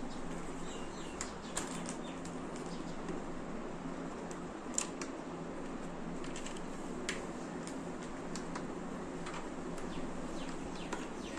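Scattered sharp plastic clicks and handling noise as a phone clamp is fitted onto the pivot mount of a chest-strap harness, over a steady low hum.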